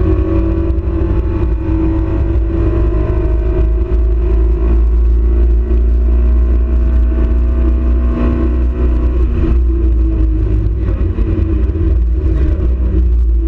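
Marcos race car's engine heard from inside the cockpit under hard acceleration, over a heavy low rumble. Its pitch climbs steadily and drops back twice, about four and nine and a half seconds in, as it shifts up.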